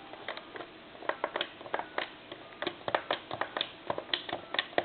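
Keypad buttons on a Radio Shack Ruby Red telephone being pressed one after another while dialing a number, giving a string of short, irregular clicks.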